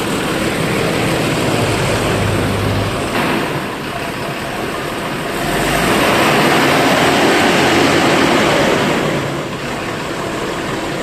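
Bus engine running with a loud rushing exhaust note that swells louder for a few seconds past the middle; the bus's exhaust has been replaced.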